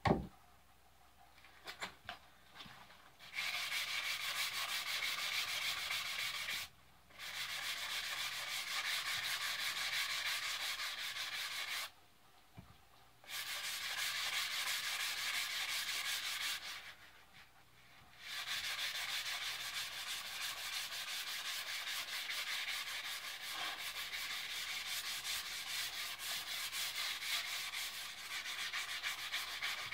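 Medium-grit sandpaper rubbed up and down a wooden axe handle in long, steady spells of scratchy hiss, four of them with short pauses between, smoothing down the wood fibres raised when the varnish was scraped off. A few faint knocks come just before the sanding starts.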